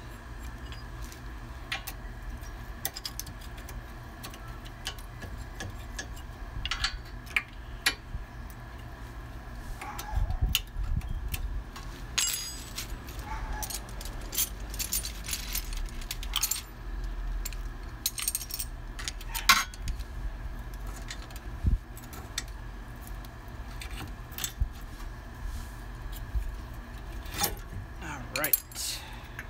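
Scattered metallic clinks, taps and rattles of hand tools and brake parts being handled while a rear brake caliper is unbolted and worked off its bracket, over a steady low background hum.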